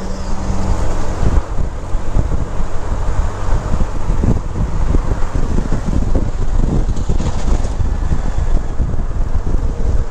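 Wind buffeting the camera microphone on a moving motorcycle, over a steady low rumble of engine and road noise.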